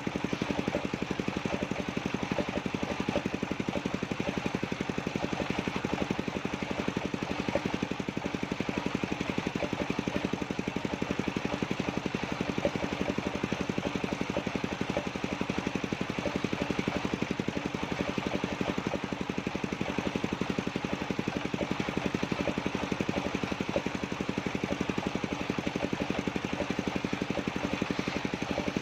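Engine of a sawmill circular-saw rig running steadily with a fast, even pulse.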